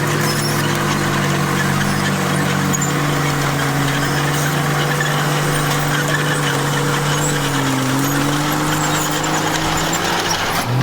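Komatsu bulldozer's diesel engine running steadily at working speed. Its pitch dips briefly about eight seconds in, as if lugging under the load of the blade, then recovers.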